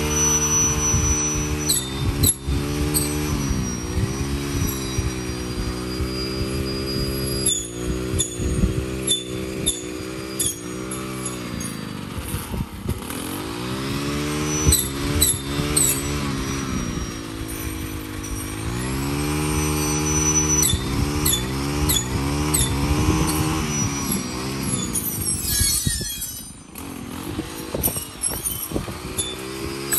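String trimmer cutting tall, thick weeds, its small engine speeding up and sagging again and again as it bites into the stems, with sharp ticks of the cutting head striking stalks. About four seconds before the end it drops briefly to a lower speed, then speeds up again.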